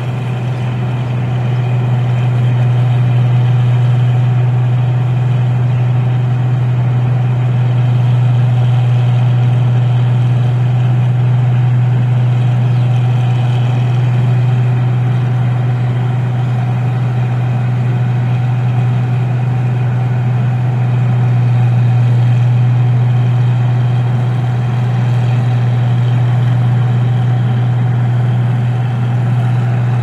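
Tracked combine rice harvester running as it cuts through the standing rice, its engine and threshing machinery making a steady low drone that holds even throughout.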